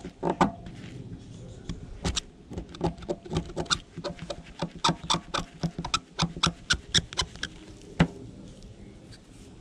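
A thin metal tool scraping and picking hardened, waxy resin off a small copper wire coil, a run of sharp, irregular clicks and scratches of about three or four a second, stopping after one last click near the end.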